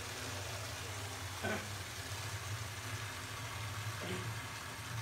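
Water running from a hose into a plastic watering can: a steady hiss that starts abruptly as the tap is opened, over a low steady hum.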